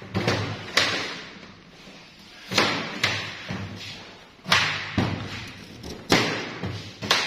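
Green bananas and plastic crates being handled: irregular heavy thuds and knocks, several clusters, each dying away with the echo of a large hard-floored room.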